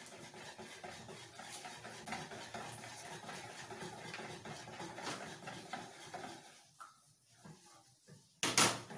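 Wire whisk stirring a thin flour batter in a plastic bowl, with faint scraping and light ticking. One sharp knock sounds near the end.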